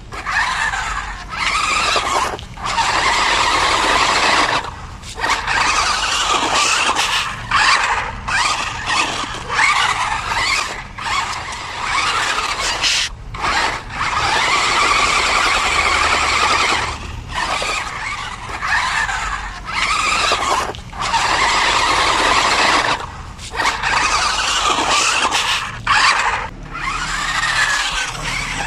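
Sprint Evo toy RC stunt car's electric drive motors and gearing whining in bursts of one to four seconds. The whine cuts out briefly between bursts, and its pitch wavers up and down as the car drives about on concrete.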